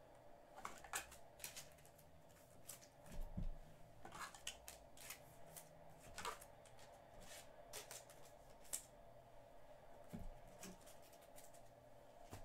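Faint, scattered swishes and light clicks of trading cards being handled and sorted, over a low steady room hum.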